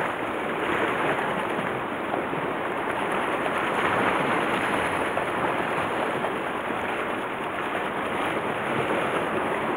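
Steady rush of sea waves and wind, even and unbroken.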